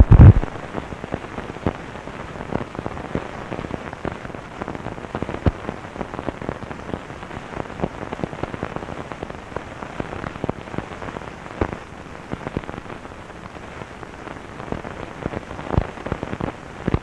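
Surface noise from an old film print's soundtrack: a steady hiss with dense crackle and scattered clicks and pops from dust and scratches, with no programme sound. One louder pop comes near the end.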